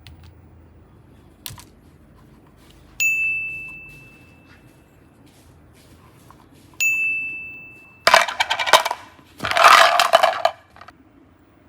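Two bright bell-like dings, a few seconds apart, each ringing out and fading over about two seconds. They are followed near the end by two loud bursts of crackly, rustling noise.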